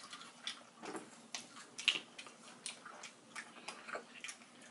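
Eating sounds of fried chicken wings: chewing and fingers tearing the wings apart, heard as irregular soft clicks and smacks, with a sharper click about two seconds in.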